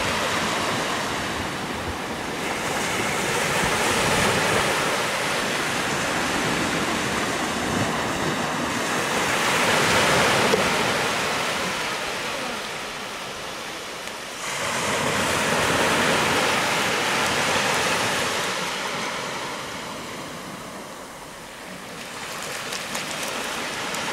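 Small waves breaking and washing up a sandy beach, the surf swelling and fading every five or six seconds.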